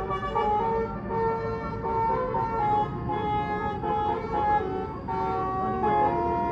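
Bus 'telolet basuri' multi-tone horn playing a melody of quick stepped notes, over the low rumble of a bus.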